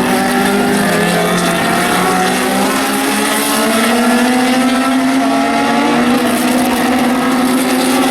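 Historic race cars accelerating hard along the straight, several engine notes overlapping and rising slowly in pitch, loud and unbroken.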